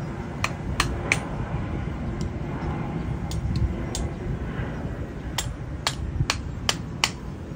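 Hammer tapping a socket held on the centre of an AC compressor clutch to drive the clutch onto the compressor shaft: a few light clicks near the start, then five sharp metallic taps about half a second apart in the last seconds.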